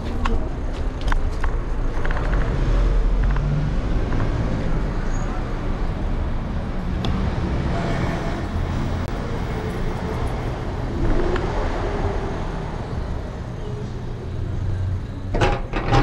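City street traffic noise with a steady low rumble, with a brief cluster of sharp knocks or rattles near the end.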